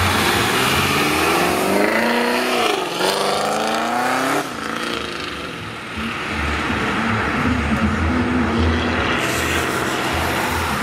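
Fifth-generation Chevrolet Camaro accelerating away, its engine note rising in pitch for a few seconds, then dropping off sharply about four seconds in, as on a gear change. A lower, steadier engine rumble follows as it pulls off down the road.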